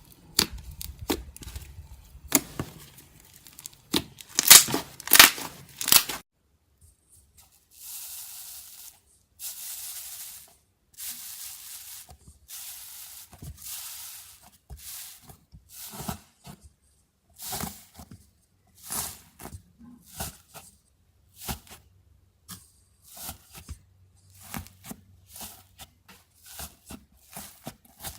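Slime being pressed, squeezed and pulled apart by hand, making crackling and sticky tearing sounds. Loud, sharp crackles come first; about six seconds in they give way to softer hissing stretches and many short crackles.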